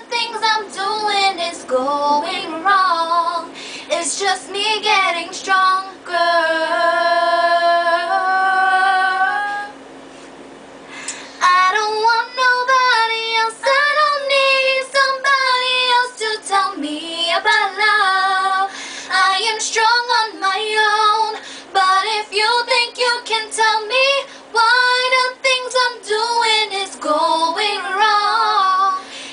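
Two young women singing together in wordless runs and long held notes, with a short break about ten seconds in before the singing resumes; a faint steady hum runs underneath.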